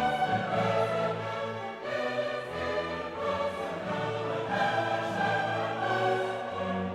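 Background music: orchestral music with choir, held sustained notes.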